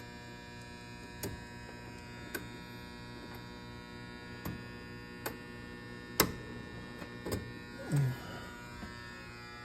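Steady electrical buzzing hum, with a few light clicks and taps from handling at the panel; the sharpest click comes about six seconds in.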